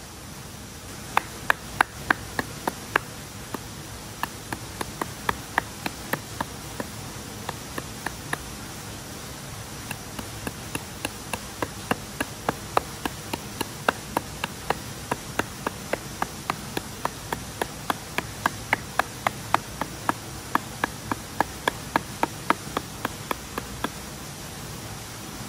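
Knife cutting wood into small pieces: a run of sharp, even knocks about three a second, with a short pause about nine seconds in. Insects hum steadily behind.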